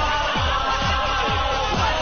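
Upbeat pop theme song with a steady electronic kick drum, about three beats a second, under a long held sung note that ends near the close.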